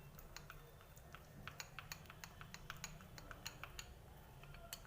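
A spoon stirring a thick mix of honey and powdered borax in a glass bowl: a run of faint, irregular light clicks and taps.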